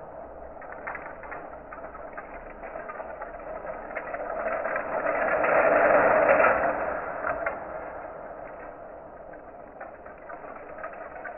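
Bamboo chopsticks clattering and rattling in a dense mass of small clicks, swelling to a peak about halfway through and then dying back down.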